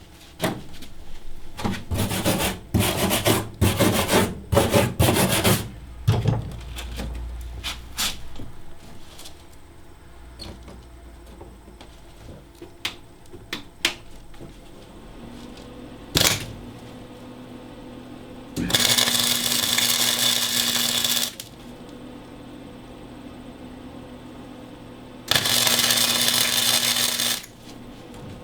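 Wire-feed welder running two short welds on 16-gauge steel floor patch plates, each a steady hiss lasting two to three seconds, the first a little past the middle and the second near the end. A quick clatter of knocks comes in the first few seconds.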